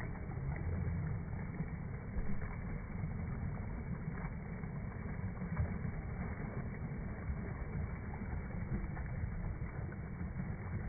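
Waterfall's steady rushing roar, heaviest in the low rumble.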